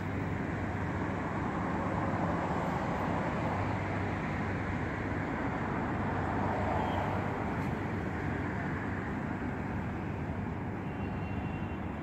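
Steady traffic noise from a city road: a continuous rumble and hiss of passing vehicles, with no single pass-by standing out.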